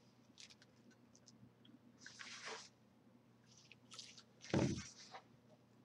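Bottle of craft glue squeezed to put a dot on a knot: soft squishy hisses, one about two seconds in and a stronger one about four and a half seconds in, with a few light handling clicks.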